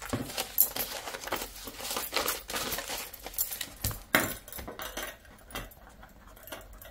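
Paper banknotes rustling and crinkling as a handful of bills is handled and tucked into a cash envelope, busiest in the first four seconds. The sounds then thin out to faint scratches and ticks of a marker pen writing on the paper envelope.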